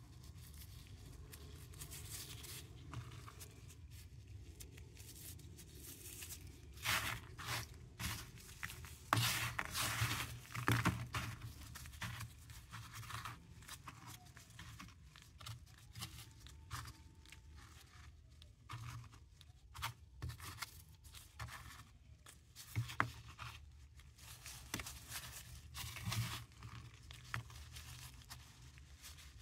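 Paradichlorobenzene mothballs crunching and crumbling as gloved hands squeeze and rub them in a bed of granular mothball powder: irregular gritty crackles and scrapes, with a louder run of crunching about seven to eleven seconds in.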